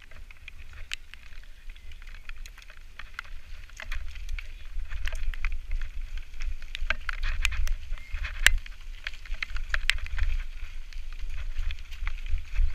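Mountain bike riding down a rough dirt singletrack: wind buffeting the microphone, growing stronger a few seconds in as the bike speeds up, with frequent clicks and rattles from the bike over the bumps.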